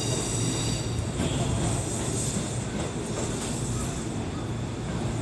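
Kintetsu 9820 series electric train standing at the platform with its onboard equipment humming steadily. A few high steady tones fade out about a second in.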